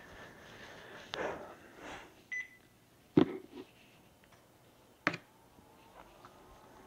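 A short, single high electronic beep about two seconds in, then two sharp knocks about two seconds apart, with light rustling of handling around them.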